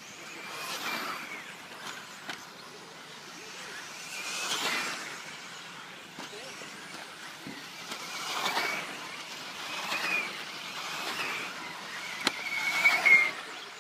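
1/10-scale 4WD electric off-road RC race cars passing one after another, their motors whining high and bending in pitch with throttle, in repeated swells, the loudest pass near the end.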